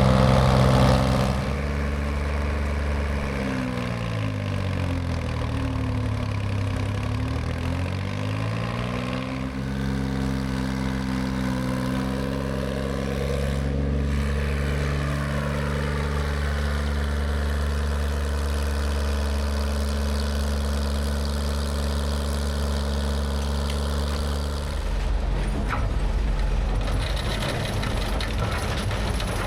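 An engine running steadily with a low hum. About two seconds in its pitch dips and comes back up, and near the end the sound changes.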